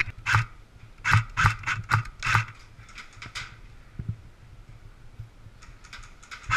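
Footsteps of a player on the move, with gear rustling: a quick run of steps, two or three a second, for the first three seconds or so, then quieter as the steps stop.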